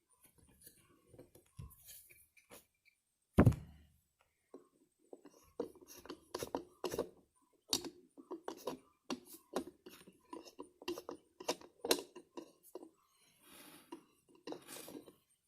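Small metal parts and hand tools clinking and tapping as carburetor pieces are handled and fitted together, with one louder knock about three seconds in, then a long run of quick clicks and taps.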